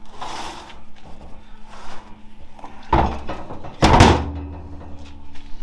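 Heavy metal transmission parts being handled on a workbench: a scrape near the start, then two heavy clunks about three and four seconds in, the second leaving a short metallic ring.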